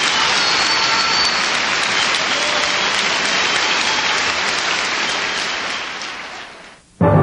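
Audience applauding steadily after a poetry reading, the applause fading out near the end. Orchestral music with timpani starts just before the end.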